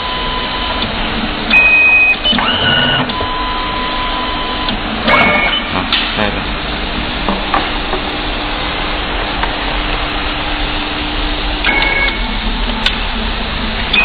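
Programmable coaxial cable stripping machine running through its stripping cycle: a steady motor whir overlaid by short steady motor tones that start and stop every few seconds, with a longer low hum through the middle.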